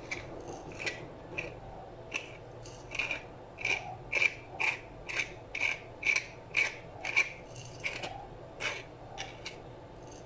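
Hand-twisted pepper mill grinding black peppercorns: a run of short grinding twists, about two a second, strongest in the middle and thinning out near the end.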